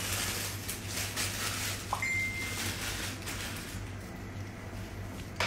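Quiet room tone with a steady low hum and faint handling noise, and a short, high electronic beep about two seconds in.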